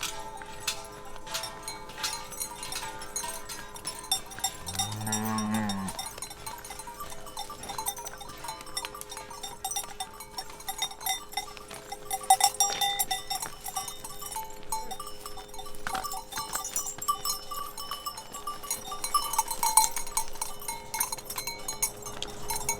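Many cowbells clanking and ringing irregularly as a herd of cattle walks along. A single low moo comes about five seconds in.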